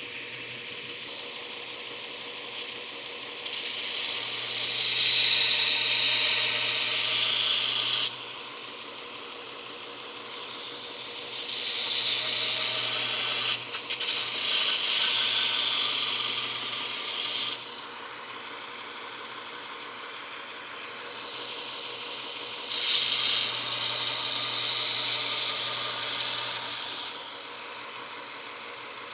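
BuckTool 2x42 variable-speed belt grinder running steadily, with a knife blade ground edge-trailing against its 120-grit belt in three passes of about four to six seconds each; each pass is much louder than the running motor between them.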